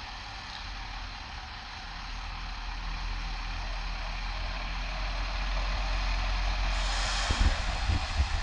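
Diesel box lorry driving slowly through deep floodwater, its engine getting louder as it approaches, with the rushing splash of water pushed aside by its wheels growing strong near the end.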